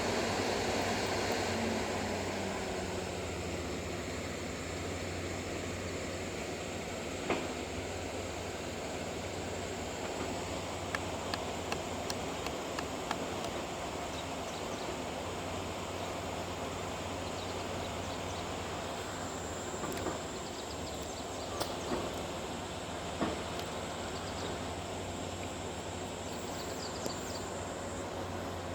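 Bulldozer's diesel engine running steadily; its pitch falls and it eases off in the first couple of seconds. Scattered metallic clanks and ticks break in now and then.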